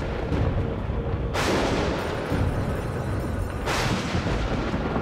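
Thunder sound effects in a film soundtrack over music: two sharp claps, one about a second and a half in and one near the end, each dying away into a low rumble.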